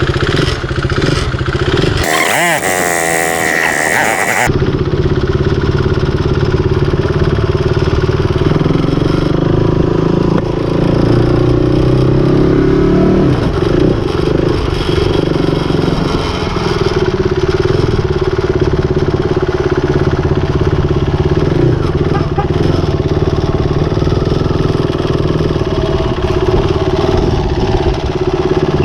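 KTM RC390's single-cylinder engine running as the motorcycle is ridden, its note climbing and then dropping about thirteen seconds in. A harsh two-second hiss stands out about two seconds in.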